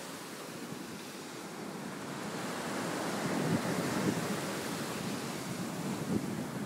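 Ocean surf washing on the beach, with wind buffeting the microphone in gusts that grow stronger about two seconds in.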